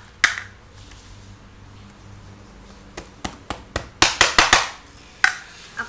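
Slime being squeezed and pressed by hand, giving sharp clicks and pops as air pockets in it burst: one click at the start, then a run of them from about three seconds in, loudest in a quick cluster about four seconds in.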